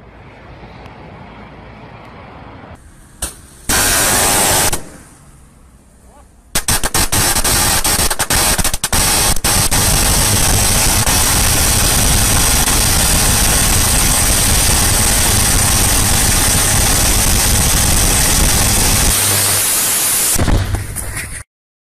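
High-voltage electrical arc from a faulted underground cable in a trench: a loud burst about four seconds in, then a sharp crackling that settles into a loud, continuous hiss and buzz for about fourteen seconds before it cuts off.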